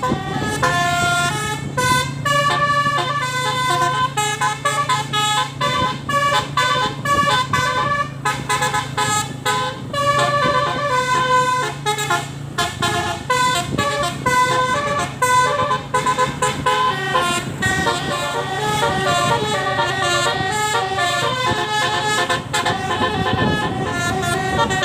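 Bus 'telolet' horn, a multi-tone musical air horn, playing quick stepping melodies again and again over a steady low hum. The tune changes to a faster up-and-down run about 17 seconds in.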